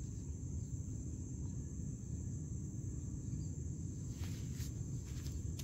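Insects chirring steadily in a high, unbroken trill over a low background rumble, with a few short clicks about four seconds in.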